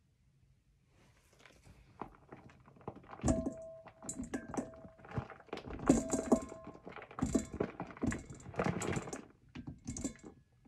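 Spoon and hands working shea butter into a stainless steel mixing bowl: a busy run of knocks, clicks and scrapes, some strikes leaving the metal bowl ringing briefly.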